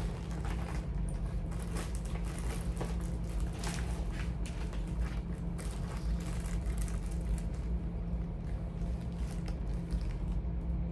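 Charging cords being handled and sorted: repeated rustling, scraping and light clicks of cables and plugs, thinning out after about eight seconds, over a steady low hum.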